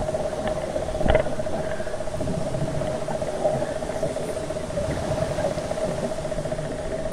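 Muffled underwater noise picked up by a camera in its waterproof housing, with a steady mid-pitched hum and one sharp knock about a second in.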